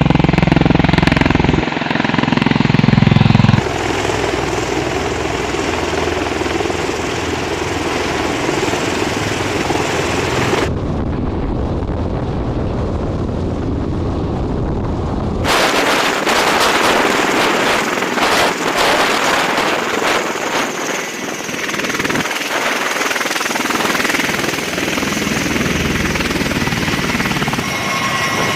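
Loud, steady engine and machinery noise, typical of an airfield. It changes character abruptly several times, from a deep low drone to a higher, rougher hiss and back.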